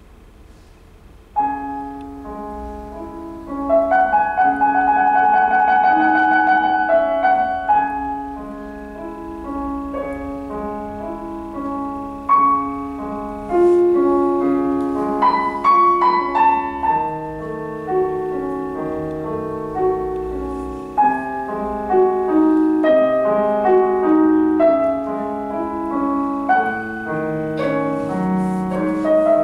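Digital piano played with a piano sound: a flowing piece of held notes and chords. It comes in about a second and a half in, after a brief quiet pause.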